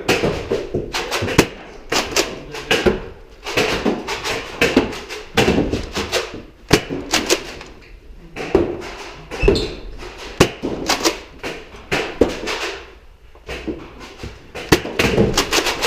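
Nerf Rival foam-ball blasters firing and their balls striking office walls and furniture: an irregular, rapid run of sharp clacks and knocks.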